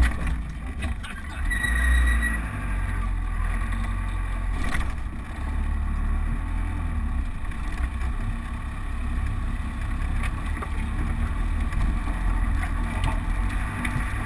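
Land Rover Defender running low and steady as it drives slowly over a rough, rutted track, heard from inside the cab. A sharp knock comes right at the start, a brief high squeak about two seconds in, and another knock a few seconds later.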